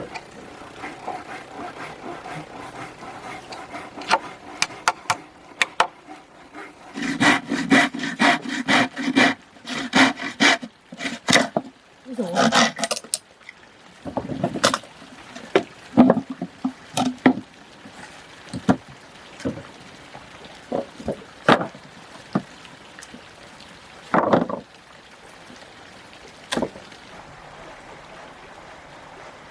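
Wood being knocked and handled: scattered sharp knocks, a dense run of rapid ringing strikes about a quarter of the way in, then sparser taps.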